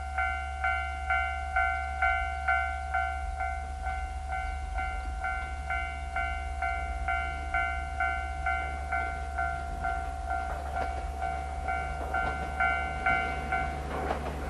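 Japanese level crossing warning bell ringing steadily at about two strikes a second. It stops near the end as an approaching electric train grows louder, with wheels knocking over the rails.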